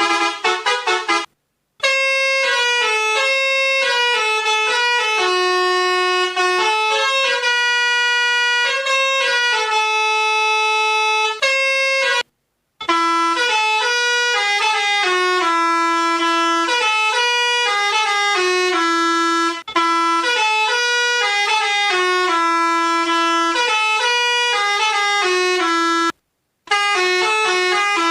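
Toy pianika (melodica) playing a telolet basuri tune, the Indonesian bus-horn style melody, as a run of held notes, often several sounding together. The tune breaks off briefly three times: about a second and a half in, around the middle, and near the end.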